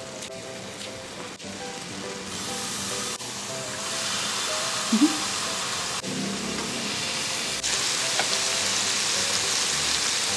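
Beef steak pieces sizzling on a hot electric grill plate, the sizzle growing louder in steps as more meat and mushrooms go onto the plate. There is a short squeak about five seconds in.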